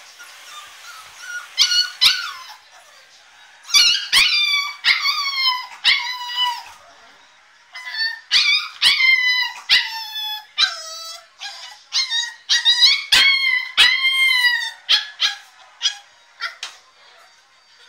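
American Staffordshire terrier puppy screaming in high-pitched cries: four bouts of short yelps, each sliding down in pitch, with brief pauses between. It is crying to be let out of its crate.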